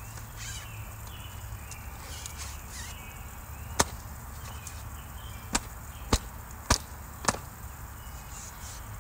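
A cloth wiping and rubbing around the frame of a wet window screen, then five sharp knocks as the screen frame is handled, between about four and seven seconds in, the first the loudest.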